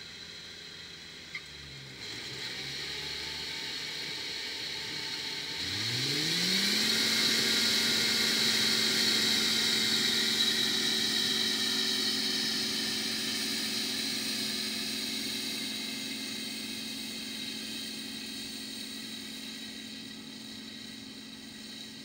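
Claas Mercator combine harvester's engine revving up about six seconds in and settling at a steady working pitch, with a hiss of machinery above it. The sound slowly fades as the combine moves away.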